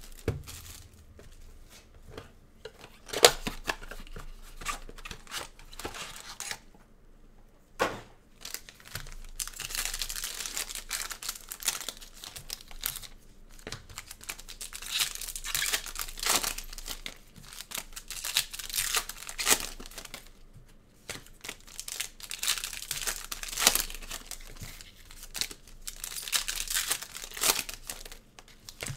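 Foil trading-card pack wrappers and packaging being torn open and crinkled in irregular bursts, with a few sharp clicks, the loudest about three seconds in.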